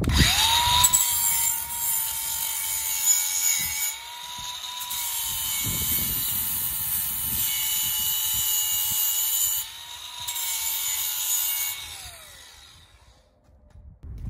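DeWalt angle grinder with a flap disc spinning up and grinding the freshly cut edge of a steel hitch plate, deburring the sharp edges: a steady motor whine under a high-pitched grinding hiss that eases and comes back as the disc is worked along the edge. Near the end it is switched off and the whine falls away as it winds down.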